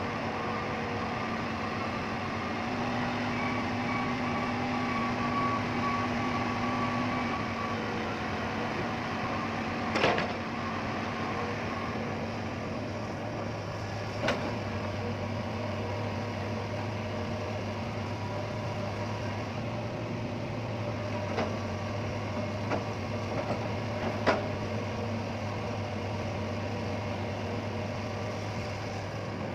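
Hitachi Zaxis 210 hydraulic excavator's diesel engine running steadily while it works, with several sharp knocks along the way, the loudest about ten seconds in.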